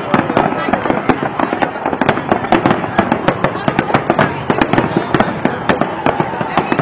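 Aerial fireworks display in full barrage: a rapid, unbroken string of shell bursts and crackle, several bangs a second.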